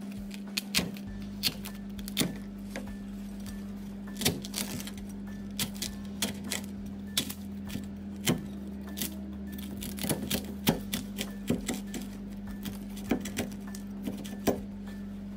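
Cleaver cutting through Thai crispy fried pork belly (moo krob) on a wooden cutting board. The puffed skin and crust give off irregular sharp crackles and crunches, the sign that the skin is fried crisp.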